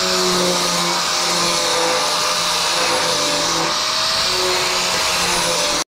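Electric angle grinder running steadily under load, its disc grinding the welded bottom rim of a steel drum: a continuous high whine over a hiss of abrasion.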